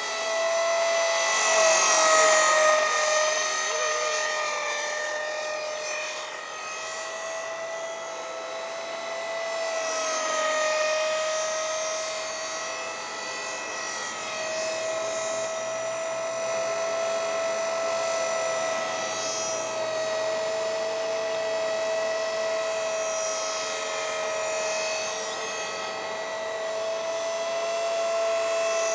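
E-flite Blade SR electric RC helicopter in flight: a steady high whine from its motor and rotor that wavers slightly in pitch. It swells louder about two seconds in and again around ten seconds in as the helicopter passes.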